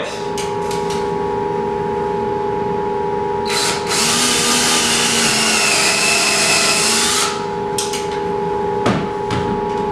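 Cordless drill driving a trim screw into a wooden header. The motor runs for about four seconds, starting a few seconds in, and its pitch sags slightly under load. A few light knocks follow near the end, over a steady hum.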